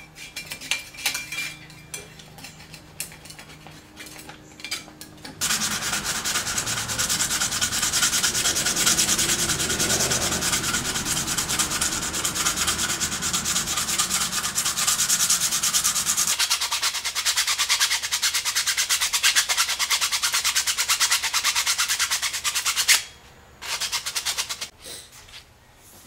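Sandpaper rubbed by hand over a small steel piece from a microwave oven transformer, in rapid back-and-forth strokes. It starts about five seconds in, runs loud and continuous, and stops near the end. Before it, a knife blade scrapes at the transformer's steel core in quieter, scattered strokes.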